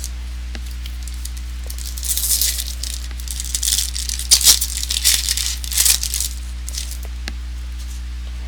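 Trading-card pack wrapper being torn and crinkled in bursts for about four seconds, starting about two seconds in, with a few light clicks, over a steady low electrical hum.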